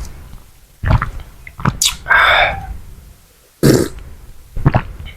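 Close-miked mouth and eating sounds: a series of sharp smacks or bites about a second apart, with a longer rasping sound about two seconds in.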